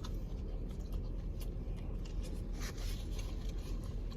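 Faint scattered crackles and clicks of food and its packaging being handled and eaten, over a steady low background rumble.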